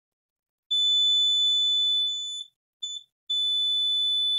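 Digital multimeter's continuity beeper sounding a steady high-pitched tone as the probes touch the coils on a laptop motherboard. There are two long beeps with a short blip between them; the beeper signals a low-resistance path.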